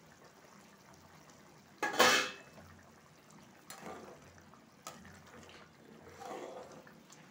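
Spatula stirring thick, boiling curry gravy in a kadai, the gravy sloshing. A loud clatter of a utensil against the pan comes about two seconds in, followed by a few softer knocks and scrapes.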